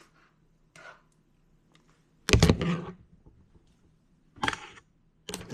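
Handling noise as a power cable is plugged in: a few short knocks and rustles, the loudest about two and a half seconds in and another near the end.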